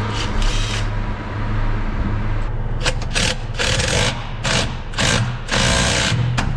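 A power tool running in short, repeated bursts, about two a second from about three seconds in, as the grease pot of a truck's central lubrication system is tightened down. Under it, the steady low hum of an idling truck engine.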